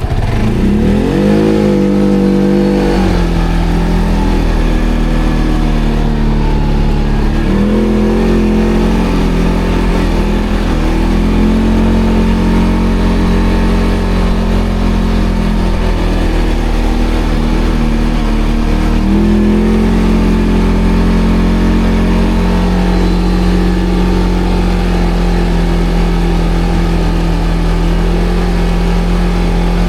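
ATV engine running under load while riding off-road, revving up three times and holding a steady speed between.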